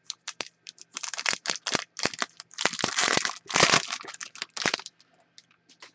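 Foil trading-card pack being torn open and crinkled by hand: a run of sharp crinkles and crackles, thickest between about one and five seconds in, then a few last faint ticks.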